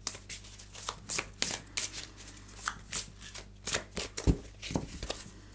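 A deck of oracle cards being shuffled by hand: quick, irregular riffling clicks of the cards slipping past each other, with a couple of dull knocks a little past four seconds in.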